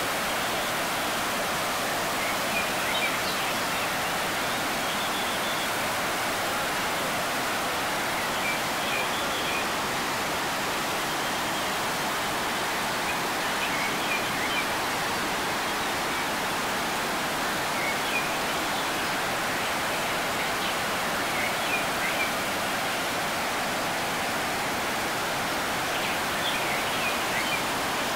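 Floodwater rushing over rock cascades: a steady, unbroken whitewater rush.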